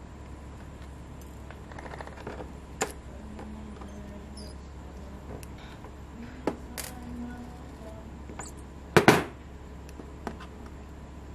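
Pliers working a thin metal pin through a small 3D-printed plastic part: a few light clicks and taps, then a sharp double snap about nine seconds in, over a low steady hum.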